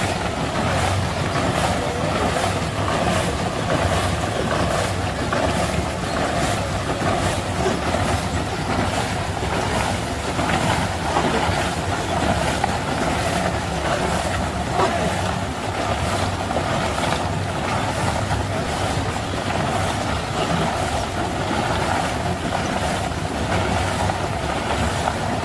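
Motor of a roller ice-cream machine running steadily, turning its large frozen drum, with a faint regular ticking about twice a second.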